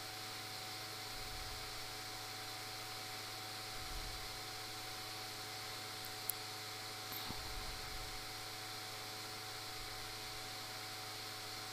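Low steady hiss and electrical hum, with a few soft knocks and one sharp click as bread pieces are turned over in the frying pan.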